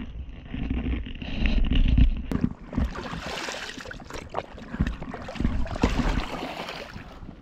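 Orange collapsible bucket dipped and swished in seawater beside a paddleboard: water splashing and sloshing with many small splashes, starting about two and a half seconds in. Before that, a low rumble.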